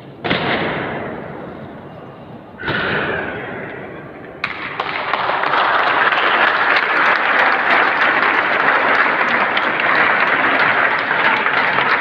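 Two heavy boot stamps of a ceremonial guard drill, each ringing out for a couple of seconds in a stone-domed hall. About four seconds in, a loud, steady wash of crowd noise with clapping begins suddenly.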